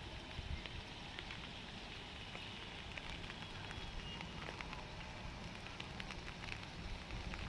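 Steady rain falling, a constant hiss of noise dotted with many small drop patters.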